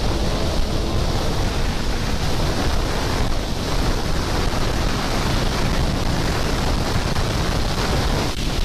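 Loud, steady wind noise buffeting the microphone: an even rush with most of its weight in the low end.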